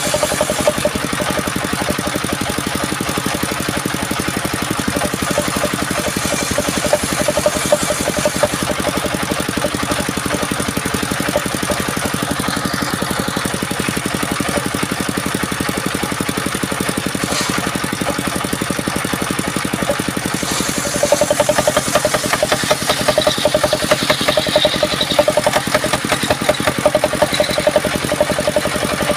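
Small engine running steadily with a fast, even beat, getting louder about two-thirds of the way through.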